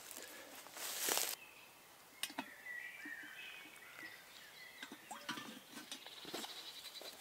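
A brief rustle and scrape of wood and leaves about a second in as a cut pole is set on the shelter frame, then water trickling and dripping softly into a wooden bowl of flour for bread dough. Woodland birds sing throughout, one with a fast trill near the end.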